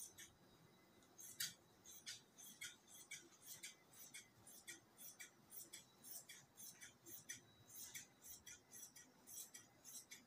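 Tailor's scissors cutting through cloth: faint, crisp, repeated snips, about three a second, starting a little over a second in.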